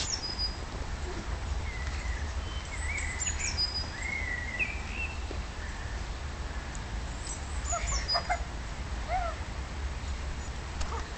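Wild birds chirping in short rising and falling phrases, over a steady low rumble.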